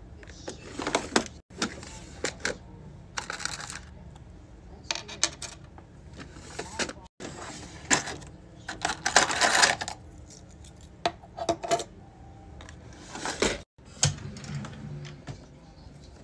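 Small plastic and metal keychain items clicking and clattering as they are picked up and set down: a lip gloss tube, key rings, plastic keys and pepper-spray holders, with clear plastic organizer drawers being handled. The clatter comes in many short, separate bursts.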